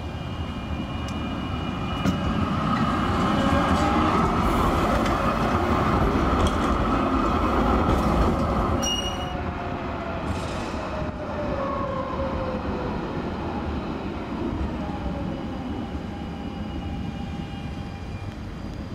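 A low-floor electric tram pulls away and passes close by, a steady running rumble of wheels on rail with a high motor whine, loudest in the middle and then fading. As it moves off, a tone falls in pitch, with a short high ping about nine seconds in. Near the end a second tram draws closer, its high whine coming back faintly.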